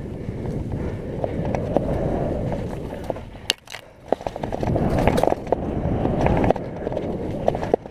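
Mountain bike rolling fast down a wet dirt singletrack: the tyres run over mud and leaf litter with a steady rumble, and the bike rattles with scattered clicks and knocks. The rumble eases off briefly about halfway, then picks up again.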